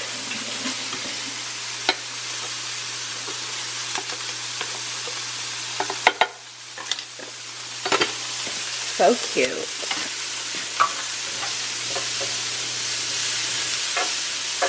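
Asparagus sizzling on an electric griddle: a steady frying hiss that grows a little louder near the end. A few short knocks and clicks come from handling the rice cooker's lid.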